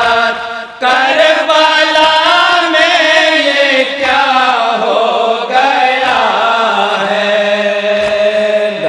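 Group of men chanting a noha, an Urdu mourning lament, together into microphones, in long held notes. There is a brief break for breath just under a second in.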